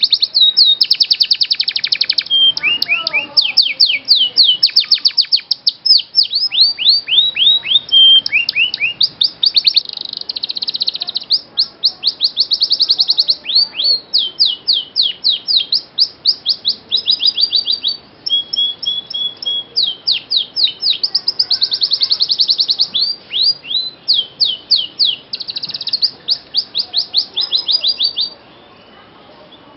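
Domestic canary singing continuously: fast trills and rapid runs of repeated high notes, with a short break near the end.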